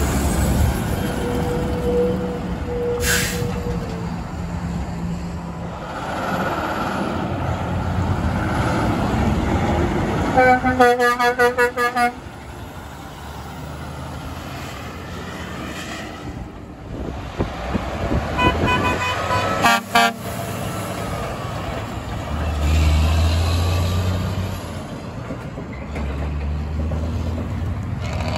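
Truck air horns sounded over diesel truck engines and passing traffic. A Mack LEU633 refuse truck's Hadley H00640U air horn gives a rapid string of short blasts about ten seconds in, the loudest sound. About eight seconds later a Kenworth T802's pair of Hadley H02123Z air horns gives a few short, higher-pitched toots.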